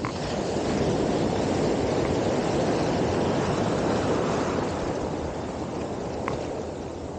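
Surf washing in around the angler's legs: a rush of breaking and foaming waves that swells about half a second in and eases off after about five seconds, with some wind on the microphone.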